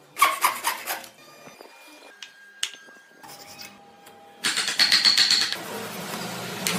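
Rapid scraping strokes on wood as a small wooden part is shaped by hand: a short burst at the start and a longer, louder run in the last third.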